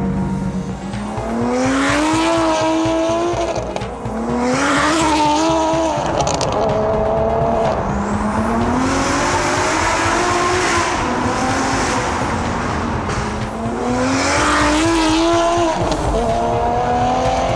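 BMW 1M's turbocharged N54 inline-six under hard acceleration. Its pitch climbs, drops back and climbs again about five times, as when pulling through the gears.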